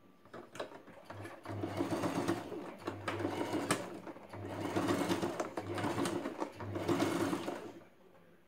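Domestic electric sewing machine stitching along a fabric edge. It starts about a second in and runs in several spells with short pauses between them, then stops near the end.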